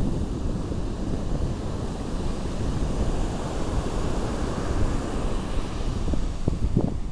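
Strong wind buffeting the microphone in a steady low rumble, with surf breaking on the beach underneath it.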